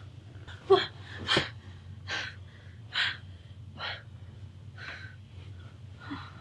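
A person breathing in short, heavy gasps, about one a second.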